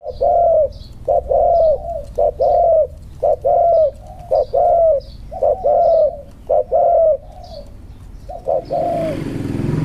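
Spotted dove cooing over and over in short-then-long phrases, each long note falling in pitch. The cooing stops near the end as a low rumble rises.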